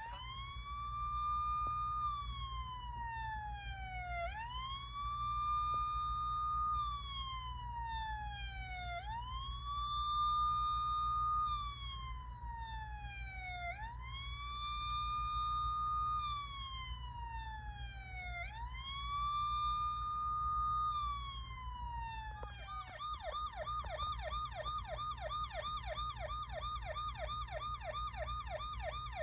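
Electronic emergency-vehicle siren on the wail setting: five slow cycles, each rising quickly, holding and then sliding down, over a steady low engine hum. Near the end it switches to a fast yelp.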